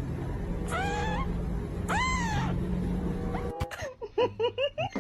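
A cat meowing twice, two drawn-out meows about a second apart. Then a quick run of about six short, high calls.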